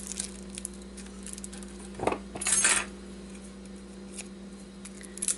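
Hands working the tape off a transformer's copper winding: light metallic clinks and handling noise, with a louder rasp about two seconds in that lasts under a second. A steady low hum runs underneath.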